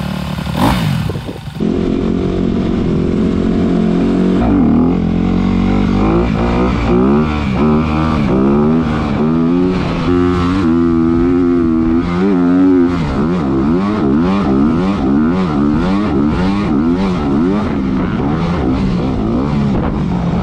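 Honda CRF250R dirt bike's single-cylinder four-stroke engine, idling at the start, then revving hard on the track after a cut about a second and a half in. The pitch climbs and drops over and over as the rider opens the throttle and shifts, and holds high for a couple of seconds near the middle.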